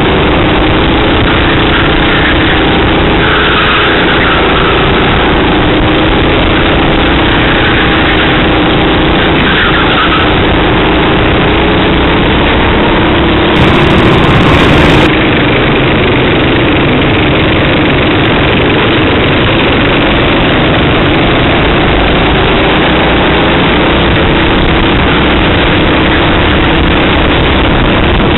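Racing kart engine heard from an onboard camera, running hard with its pitch rising and falling as the kart accelerates and lifts through the corners, over heavy noise on the microphone. A brief louder, brighter stretch about halfway through.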